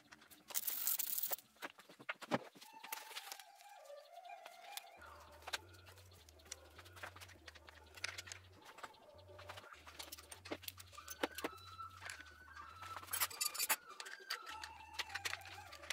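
Background music with a stepping bass line and a wavering melody, over sharp clicks and rattles from hands working on the engine's wiring and connectors. The bass drops out for about a second near the end.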